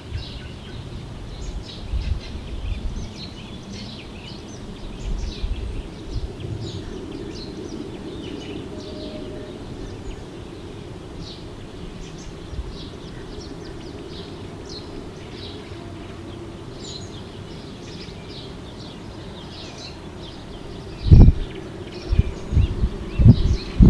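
Outdoor ambience of many small birds chirping in short, scattered calls over a low steady background rumble. In the last few seconds there are several loud low thumps or buffets.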